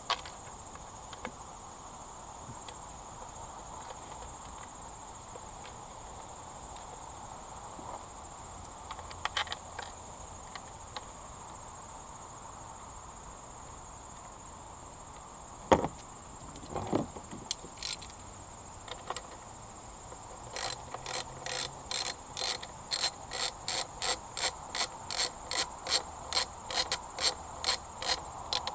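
Ratchet wrench clicking in a steady run of about three clicks a second during the last eight seconds, driving home a mounting bolt of an outboard's pull start assembly. Before it come a few scattered knocks of metal parts, the loudest about sixteen seconds in.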